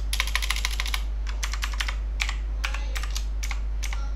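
Keystrokes on a computer keyboard as a password is typed: a quick run of keys in the first second, then single keys spaced out. A steady low hum runs underneath.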